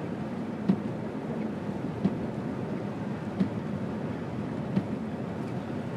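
Steady road and engine rumble heard inside a moving car's cabin, with a short thump about every second and a half.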